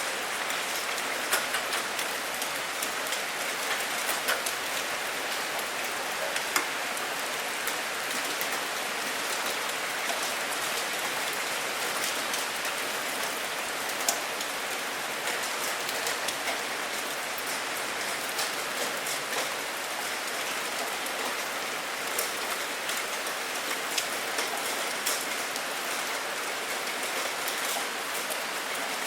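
Steady rain: a dense, even hiss scattered with frequent sharp clicks of single drops striking a surface.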